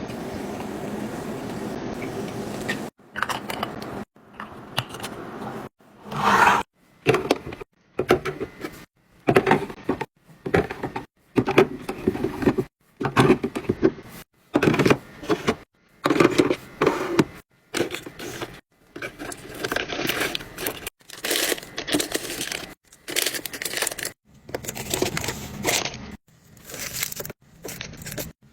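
A rapid series of short handling sounds from items being unpacked and stocked: packaging crinkling and tearing, scraping and clunks. Each snippet cuts off abruptly into silence, about one every second.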